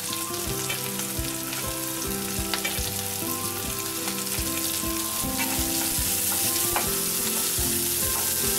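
Chopped onions sizzling in hot oil in a kadai as they are tipped in with green chillies and ginger and stirred, the spatula scraping and clicking against the pan now and then.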